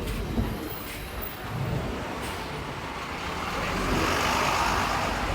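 Street traffic: a motor vehicle passing along the road, its noise swelling in the second half.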